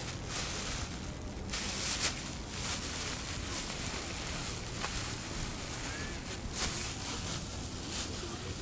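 Wind buffeting the microphone, with short crinkling and rustling noises from a plastic bag being handled several times.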